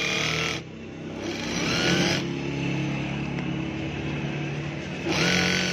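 Juki DDL-555 single-needle lockstitch industrial sewing machine, driven by a servo motor, stitching through fabric in spurts. It runs, stops briefly about half a second in, then runs again, changing speed as it goes.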